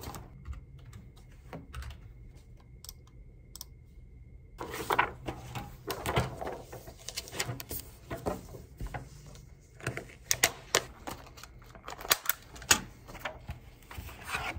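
Irregular light clicks and taps of small hard objects, sparse at first and then denser and louder from about five seconds in.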